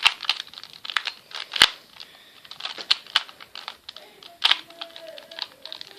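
Quick, irregular plastic clicks and rattles of a 2x2 Rubik's Cube's layers being turned rapidly as it is scrambled.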